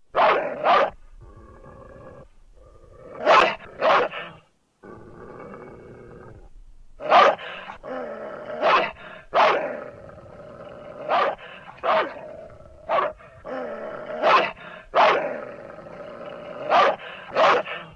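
Animated-film dog sound effects: a big hound barking in loud, sharp barks, often two at a time, about fourteen in all, with low growling between them.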